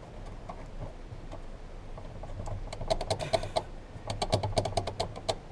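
Quick, irregular clicking and rattling of small hard plastic parts being worked by hand, starting about three seconds in: a clip-on connector on a fuel pump assembly being pushed and wiggled while it refuses to seat.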